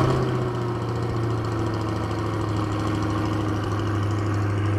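2020 C8 Corvette Stingray's 6.2-litre LT2 V8, breathing through an aftermarket (non-stock) exhaust, just fired up on a warm-ish restart. It flares loudly at the very start, then settles into a steady idle.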